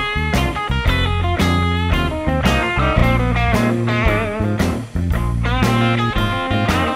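Background music: bluesy rock with guitar and a steady beat.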